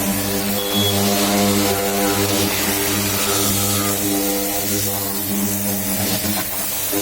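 High-pressure car washer running: a steady motor hum with a hiss of spray over it.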